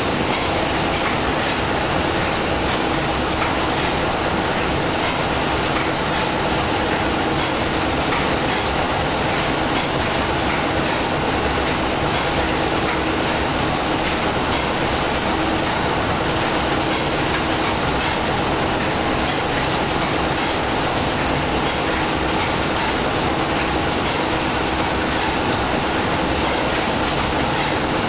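Paddle steamer's steam engine and engine-room machinery running: a steady, loud, even mechanical clatter with a constant hum underneath.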